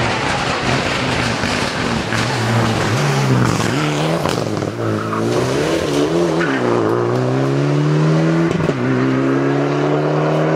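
Mitsubishi Lancer Evolution X rally car's turbocharged four-cylinder engine driven hard past at speed, the revs rising and falling repeatedly through gear changes as it pulls away. A sharp crack about eight and a half seconds in.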